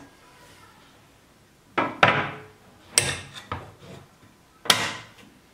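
Sharp knocks and clunks from handling a tilt-head stand mixer and its stainless steel bowl: about five hard knocks starting around two seconds in, as the mixer head with its dough hook is swung down into place over the bowl.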